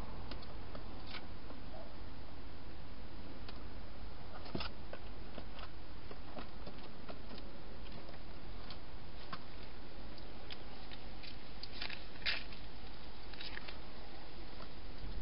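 Scattered faint clicks and rustles of a wild hedgehog moving about a plastic feeding box, over a steady low hum; the sharpest clicks come about four and a half seconds in and again around twelve seconds.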